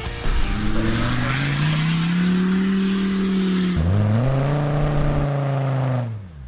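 Off-road vehicle engine revving hard. Its note climbs and holds for a few seconds, dips sharply about four seconds in, rises again, then the revs fall away near the end.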